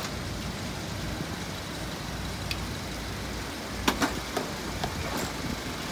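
Steady low rumble of a car engine idling under a hiss. About four seconds in come a few sharp clicks and clacks as jumper-cable clamps are handled and clipped at the car battery.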